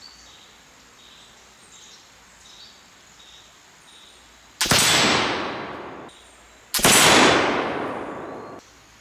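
Two loud reports from a .45-calibre Pedersoli Charles Moore flintlock pistol, the first about four and a half seconds in and the second about two seconds later, each trailing off in a long echo of about a second and a half.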